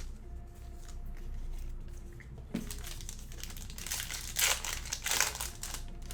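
A foil trading-card pack wrapper being torn open and crinkled, starting about two and a half seconds in and loudest about four to five seconds in.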